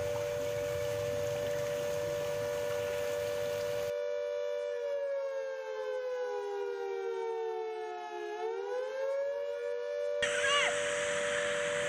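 Warning siren sounding a steady wail; a few seconds past the middle its pitch sags lower, then climbs back up to the steady note.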